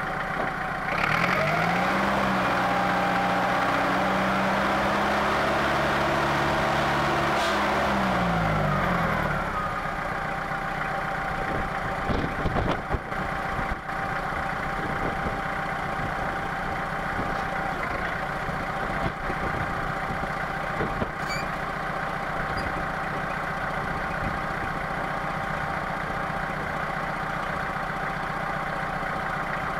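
Lansing Bagnall forklift's Perkins diesel engine revving up about a second in and holding there for some eight seconds while the hydraulic mast is raised, then dropping back to a steady idle. A few knocks come a few seconds after it settles.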